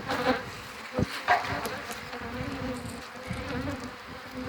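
Swarm of honey bees buzzing in flight, a steady hum, with a few sharp knocks, the loudest about a second in.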